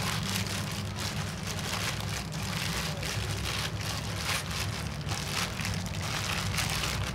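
Thin plastic bag on a hand crinkling and rustling as it kneads and squeezes a moist minced-fish and herb mixture against an aluminium bowl, with a steady low hum underneath.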